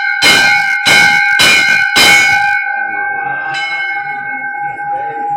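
Temple bell rung by hand: struck four times in quick succession, a little over half a second apart, then once more lightly, its clear ringing tone hanging on between and after the strikes.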